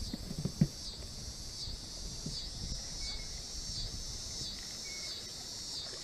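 Insects chirring in a steady high-pitched chorus that pulses about once a second, over a low rumble of wind or handling on the microphone. A single sharp click about half a second in is the loudest sound.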